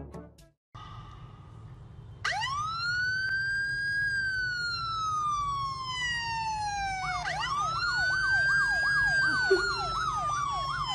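Electronic police-style siren: about two seconds in a wail rises, then slowly falls over about five seconds; a second wail rises and a fast up-and-down yelp joins it near the end.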